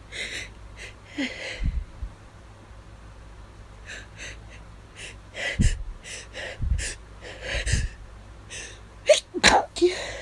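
A person stifling a string of allergy sneezes: sharp gasping breaths between muffled, held-in sneeze bursts, about five in a row. The loudest, partly voiced one comes near the end.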